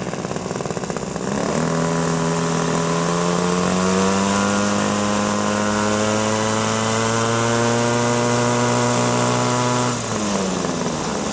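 Gas engine of a radio-controlled model helicopter (Hirobo Huey gasser) revving up and running at high, steady speed. About a second and a half in the pitch climbs, holds high, then drops back to a lower idle near the end.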